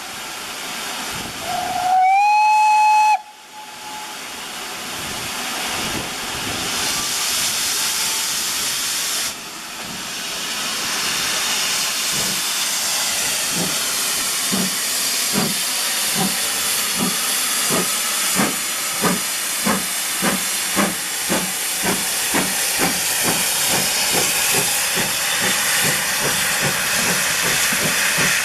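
Steam locomotive whistle: one blast of about a second and a half, rising slightly in pitch and then held, a couple of seconds in. Then a steam locomotive starting away, its exhaust beats beginning near the middle and quickening, over a steady hiss of steam.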